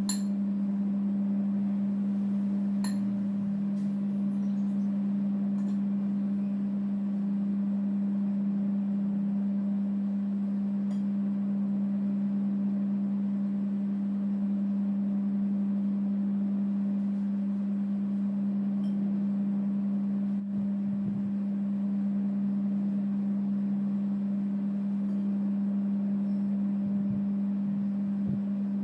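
A steady low humming tone that holds one pitch without changing, with a few faint clicks now and then.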